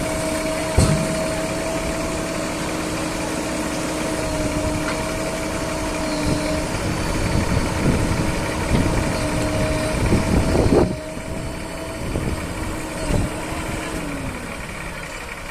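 Backhoe loader's diesel engine running with a steady whine, broken by several irregular knocks and clanks; near the end the whine drops in pitch.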